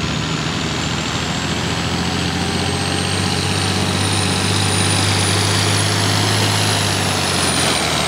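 Turbocharged diesel tractor engine running steadily at the pull, with a high turbo whistle that slowly climbs in pitch and drops away near the end.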